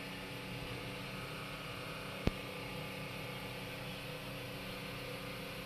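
Steady low machine hum in the background, with a single sharp click a little over two seconds in.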